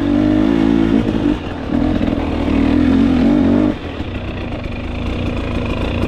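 KTM 250XC TPI single-cylinder two-stroke dirt bike engine, fitted with a TSP performance kit, pulling under throttle: two long pulls broken by a brief lift off about a second in, then the throttle eases off about two-thirds through and it settles to a lower, steadier running.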